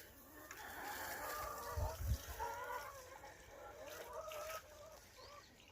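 Backyard chickens clucking softly: a run of low, wavering calls that stops about four and a half seconds in, with a brief low bump about two seconds in.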